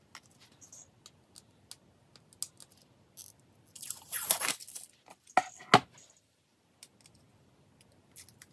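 Protective plastic film being peeled off acrylic pieces: scattered small crackles and clicks, with a longer tearing rustle about four seconds in and two sharp clicks just after.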